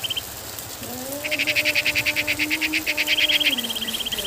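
Frogs calling from wet rice paddies in rapid pulsing trills, about ten pulses a second, in bouts of a second or two. A low steady hum underneath rises about a second in and drops near the end.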